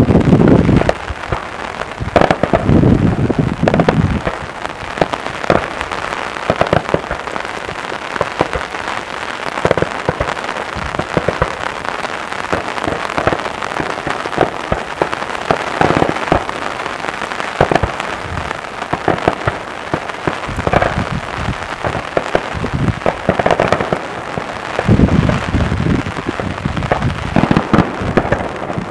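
Aerial daytime fireworks crackling: a dense, continuous run of small sharp firecracker reports, with heavier booms at the start, a couple of seconds in, and again a few seconds before the end.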